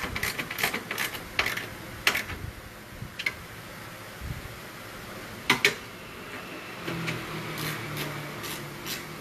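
Ratchet wrench on a long extension clicking as the strut tower bar nut is tightened: a quick run of clicks in the first two seconds, then scattered metallic clicks, with two sharp ones close together about five and a half seconds in. A faint low hum starts about seven seconds in.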